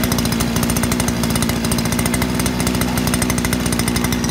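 Sumo multi-purpose brush cutter's two-stroke engine running steadily with a fast, even buzz.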